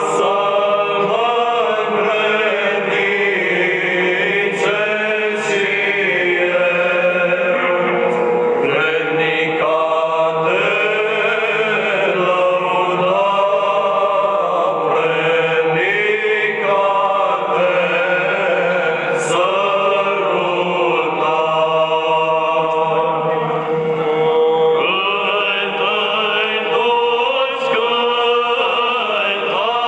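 Church singing of a Romanian Orthodox hymn to the Holy Cross, a chant-like strophic melody sung without a break.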